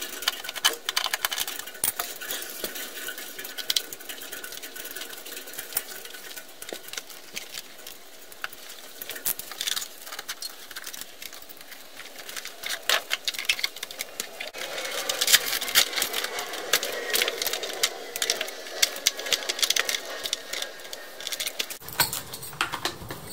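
Rapid, irregular clicking and rattling of small hand tools and hardware while an RC boat's jet drive unit and electronics are unfastened and lifted out of the hull, busier and louder in the second half.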